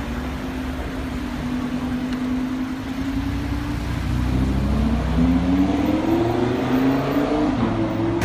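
Supercar engine pulling away, running low and steady at first, then revving up through the gears as it accelerates off, its pitch climbing and dropping back at each shift and growing louder from about halfway.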